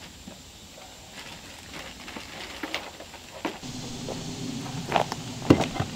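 Footsteps and scattered knocks and clanks from hand work on a propane gas riser pipe, sharper and louder in the second half, with a low steady hum coming in a little past halfway.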